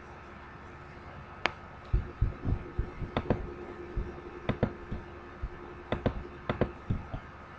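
Irregular soft low thumps and sharp clicks, some fifteen over about five seconds, over a steady electrical hum in a small room.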